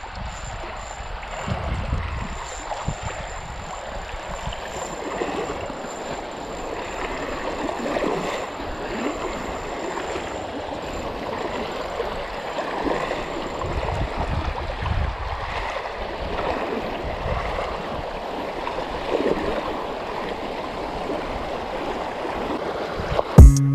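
Shallow river water flowing and rippling steadily around the wader, with a hooked fish splashing at the surface near the end. Guitar music cuts in at the very end.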